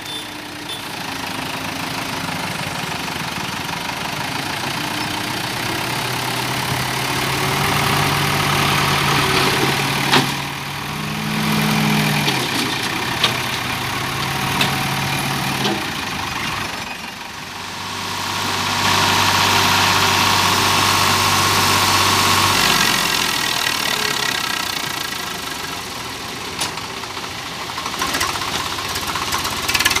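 Diesel engines of a Case backhoe loader and a Swaraj farm tractor running and revving under load as the loader bucket shoves a stuck tipper trolley, the engine note rising and falling. A louder, deeper spell of revving past the middle cuts off sharply, and a few sharp knocks sound in the first half.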